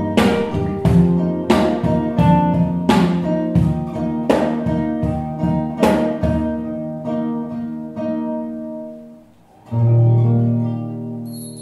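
Acoustic guitar music, the closing bars of a song: plucked and strummed notes on a regular beat that die away about eight seconds in, then a low held note swells up near the end.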